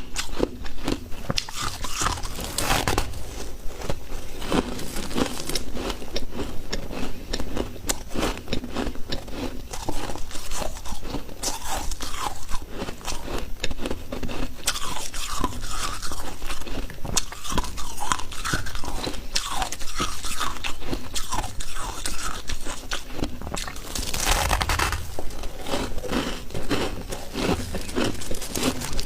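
Freezer frost being bitten and chewed close to the microphone: dense, irregular crunching, with a louder rasping stretch a few seconds before the end.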